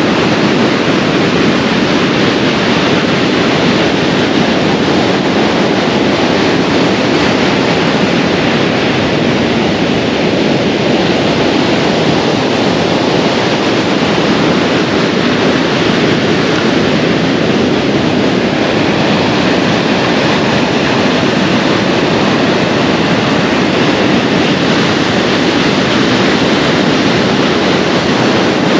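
Waves breaking on a beach in a steady, loud rush of surf, with wind blowing across the microphone.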